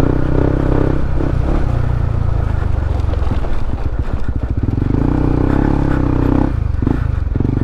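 Honda CB150X's single-cylinder engine running as the motorcycle is ridden. The engine note drops about three seconds in and picks up again around five seconds.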